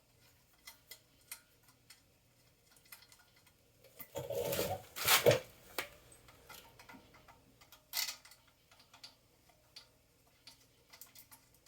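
Scattered small metallic clicks and taps of hand tools and bolts being handled while a replacement pump is bolted onto a pressure washer, with a louder clatter about four seconds in and a short one about eight seconds in.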